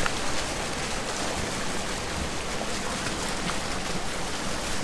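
Steady rushing of flowing water in an old canal lock, an even hiss with no breaks.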